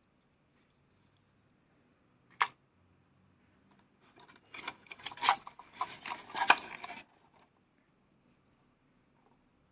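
A single sharp click, then about three seconds of scraping, rustling and clicking as the toy fishing game and its pieces are handled.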